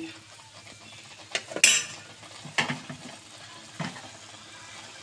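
Metal spatula scraping and clanking against a frying pan while a beef and vegetable stir-fry is stirred, over a light sizzle. About four sharp scrapes, the loudest about one and a half seconds in.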